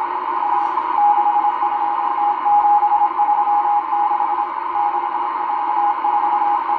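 M12 numbers station sending Morse code numbers, heard on a Realistic DX-394 shortwave receiver. A steady mid-pitched beep keys on and off in mostly long dashes with some short dots, over constant static hiss.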